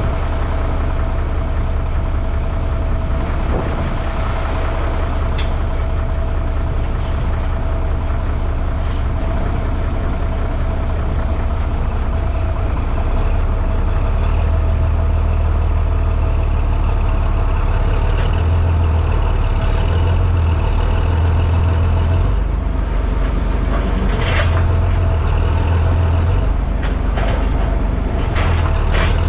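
Tractor engine running under load while dragging an old harvester out. The engine gets louder and heavier about 13 seconds in, with a steady whine and a few clunks along the way.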